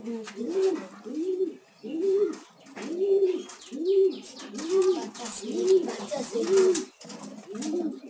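A Jacobin pigeon cooing over and over, about one coo a second, each coo rising and then falling in pitch. Faint scratchy clicks run over the calls.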